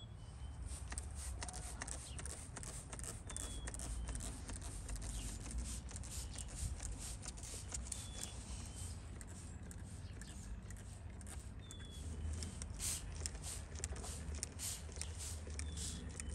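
Hand trigger spray bottle misting plants: repeated short sprays in quick succession, coming thickest near the end.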